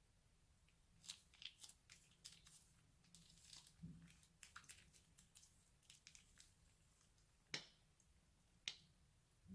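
Faint, irregular crackling and small pops of crunchy slime being pressed and worked, followed by two sharper clicks near the end.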